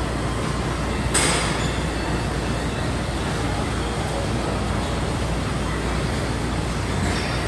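Steady rumbling room noise of a large gym, with a short hissing rustle about a second in.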